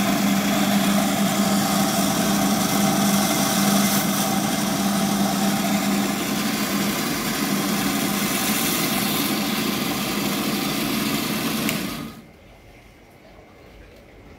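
Gryphon C-40 diamond band saw running steadily with a low hum and a high hiss while a piece of acan coral is cut on its blade. It shuts off about twelve seconds in.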